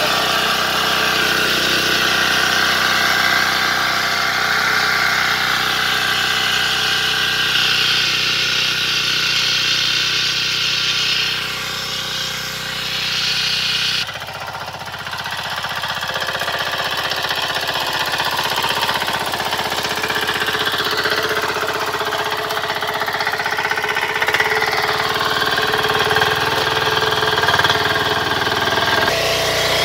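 Small power tiller's engine running steadily under load as its rotary tines churn through soil, with a rhythmic mechanical clatter. The sound jumps abruptly to a slightly different engine note about halfway through.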